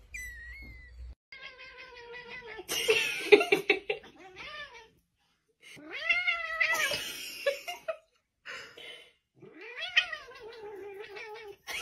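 A tabby cat yowling: about four long, wavering cries with short pauses between them. A brief high kitten mew comes in the first second.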